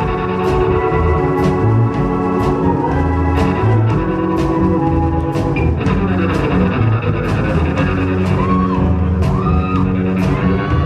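Live rock band playing an instrumental passage: drum kit keeping a steady beat under held organ chords, bass and electric guitar, with a few bent guitar notes near the end.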